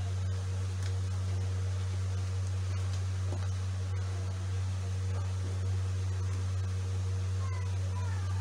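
A steady low hum, unchanging in level, with a few faint falling tones near the end.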